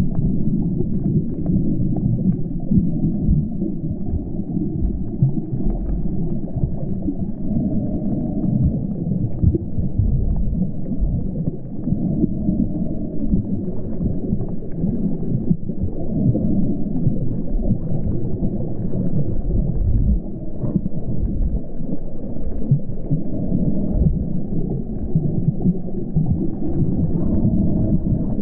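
Steady, muffled underwater rumble of moving water, dull and low as heard from a camera submerged in its waterproof housing.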